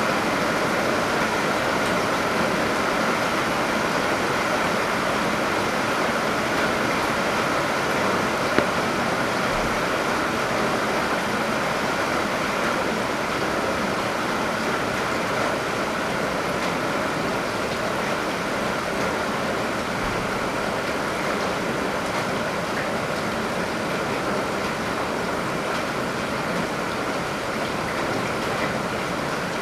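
Heavy rain, with rainwater pouring steadily out of a downpipe and splashing, as an even rushing noise. A single sharp tap stands out about eight seconds in.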